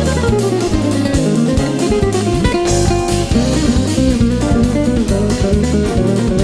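Instrumental background music led by guitar, with a moving bass line underneath.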